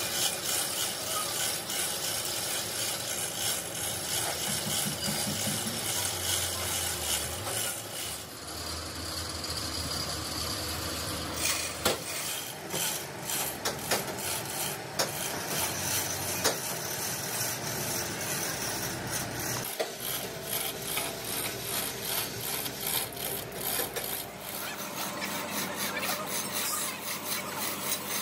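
Manual chain hoist being hauled hand over hand: the steel hand chain rattles and scrapes through the block, with many sharp clicks that come thicker in the second half.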